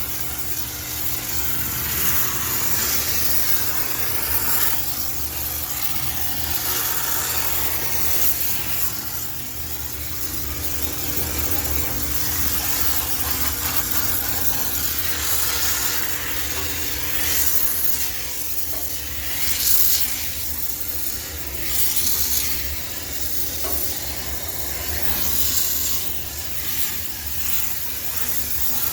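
High-pressure steam cleaner hissing steadily as it blasts steam to sterilize a coin-laundry washing machine, with a low machine hum underneath.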